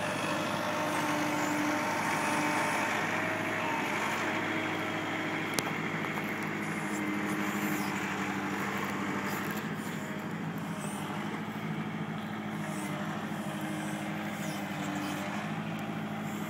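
Kubota L4400 tractor's diesel engine running steadily, with higher whining tones that come and go over it, and a single sharp click about five and a half seconds in.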